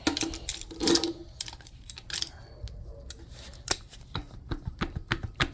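Light metallic taps and clicks of hand tools working at a seized distributor in a Ford 351M engine block. One louder knock comes about a second in, then a quickening run of quick clicks, about four to five a second, in the second half.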